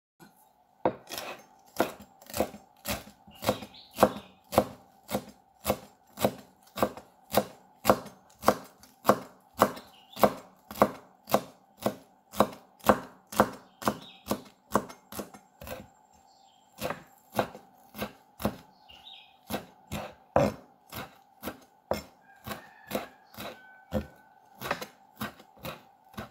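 Chef's knife chopping fresh coriander leaves on a bamboo chopping board: a steady run of sharp knocks, about two a second, with a short pause about halfway through.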